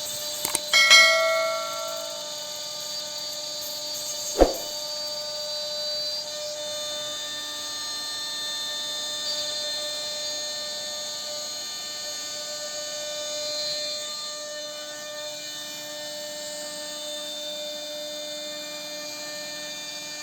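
CNC router spindle running steadily with a whine while it cuts wood. A few sharp knocks come in the first seconds, the loudest near one second with a brief ring, and one more comes about four and a half seconds in.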